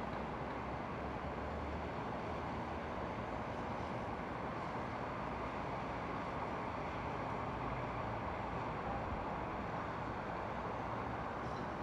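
Steady outdoor background noise, an even hiss and rumble without any distinct sounds.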